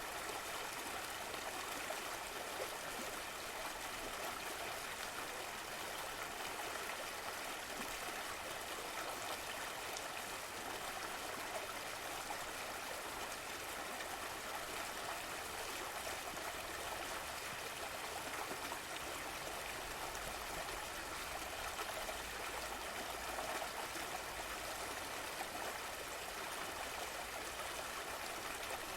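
A river flowing: a steady rushing and babbling of running water over the whole stretch, even in level with no breaks.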